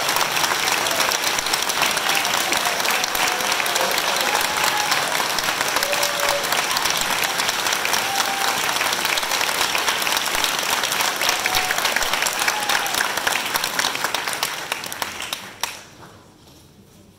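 Audience applauding, with a few voices calling out over the clapping. The applause dies away in the last few seconds.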